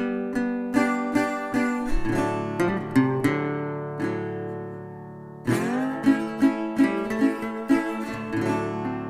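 Background music on acoustic guitar: picked notes in a steady rhythm, a chord left ringing that fades away, then a fresh strum about five and a half seconds in and the picking resumes.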